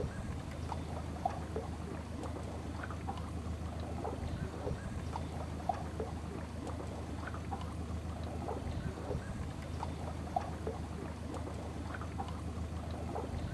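A motorboat under way: an outboard motor runs with a steady low hum, while water splashes and laps against the hull in many small irregular bursts.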